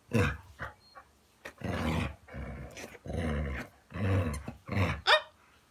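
Dog growling in play: a string of about six low growls with short pauses between, then a short high yip near the end.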